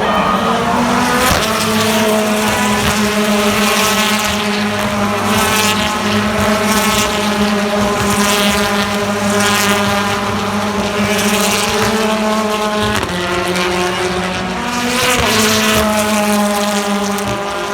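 A BTCC touring car's turbocharged 2-litre four-cylinder engine running at a steady, held engine speed. Its pitch steps up about a second in, drops about 13 seconds in, and changes again briefly a couple of seconds later.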